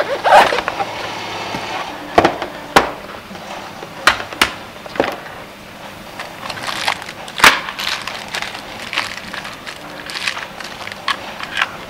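Plastic parts case and packaging being handled: a plastic component box slid out of a cardboard box and opened, with several sharp clicks and knocks among the rustle of plastic bags of jumper wires and parts being rummaged through.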